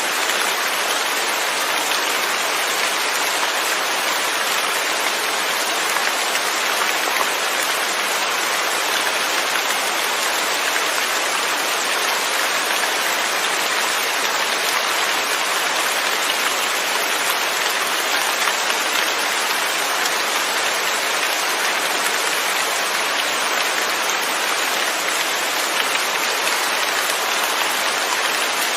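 Steady rain with no thunder, an even hiss of falling drops that holds constant throughout.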